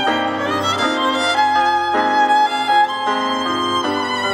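Violin playing a melody over digital piano accompaniment, with no singing.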